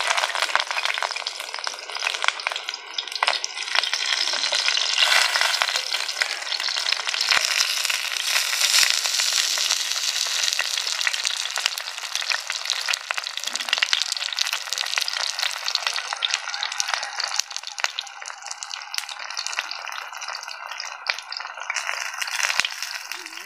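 Oil sizzling and crackling in a shallow pan as banana-leaf parcels of chicken geeli dosa fry over a wood fire: a steady, dense crackle full of small pops.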